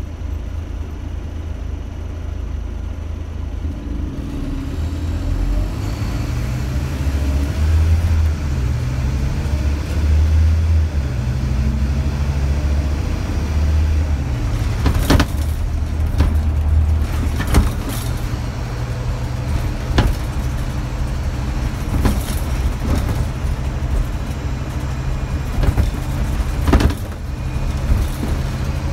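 Scania DC9 nine-litre five-cylinder diesel of a double-decker bus, heard from the upper deck while under way. The engine note rises and falls as the bus accelerates and the ZF automatic gearbox changes gear. In the second half a series of sharp knocks and rattles from the bodywork and fittings sound over the road.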